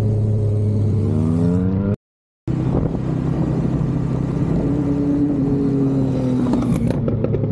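A 1050cc superbike engine revving, its pitch climbing over the first two seconds, then cut off by a half-second gap of silence. It comes back running hard, its pitch easing down slowly near the end, with a few sharp ticks at the very end.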